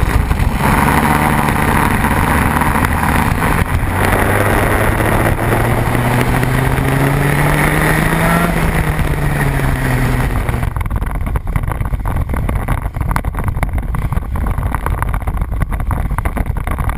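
A Vortex two-stroke kart engine running on a wet track, heard from on board with wind and spray noise. Its pitch rises briefly about eight seconds in and then falls. The engine sound drops out at about ten seconds, leaving a steady noise.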